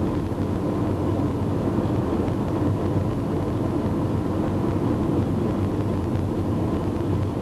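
Steady low rumble of a vehicle driving along at an even speed.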